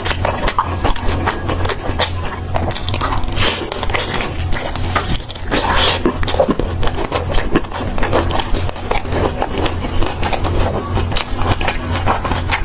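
Close-miked eating of fried skewers: biting and chewing, a dense run of crackly clicks and wet smacks, over a steady low hum.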